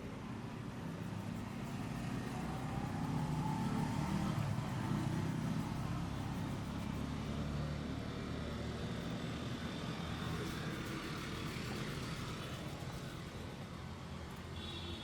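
Street traffic: a passing motor vehicle's low engine rumble swells to a peak about four seconds in, then slowly fades.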